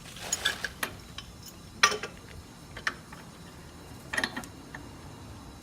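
Scattered metallic clicks and clinks of pipe fittings and wrenches being handled as a threaded gas fitting is lined up and pulled on. The loudest click comes about two seconds in, and there is a quick run of clicks just after four seconds.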